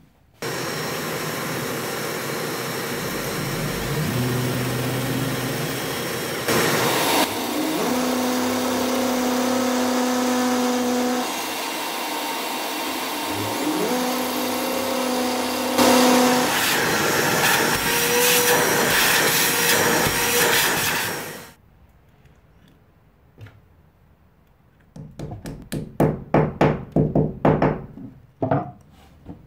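A shop vacuum runs for dust extraction while a Makita hammer drill bores into brick, its motor whine starting and stopping in stretches. Both cut off suddenly about two-thirds of the way through, and a quick run of sharp clicks and knocks follows near the end.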